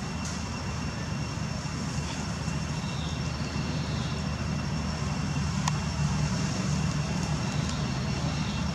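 A steady low motor drone with a thin, steady high whine above it, and a single sharp click a little past halfway.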